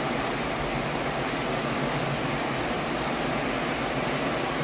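Heavy rain falling steadily, an even, constant hiss of water.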